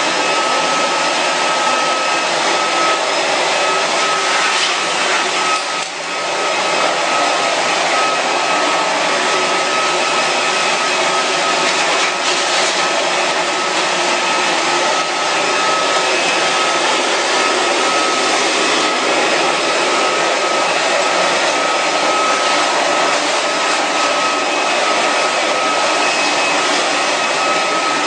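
An electric fan motor, of the vacuum-cleaner or blower kind, running steadily: a continuous rush of air with a constant high whine. It briefly dips about six seconds in.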